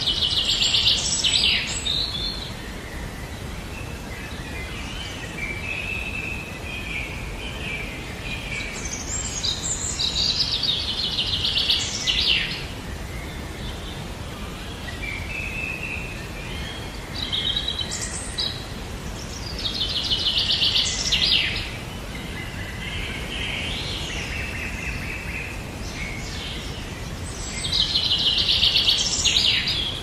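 A bird singing rapid trilling phrases of about two seconds each, four or five times, with softer chirps between them, over a steady outdoor hiss.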